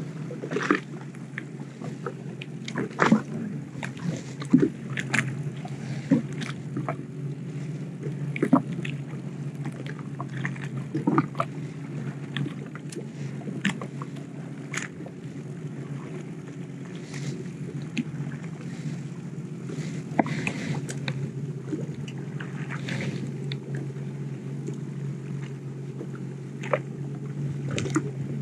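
Jet ski engine idling steadily, with irregular sharp taps and knocks of small waves slapping against the hull.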